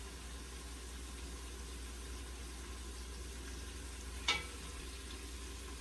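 Seasoning frying in oil in a pot over high flame, a steady sizzle, with one sharp click about four seconds in.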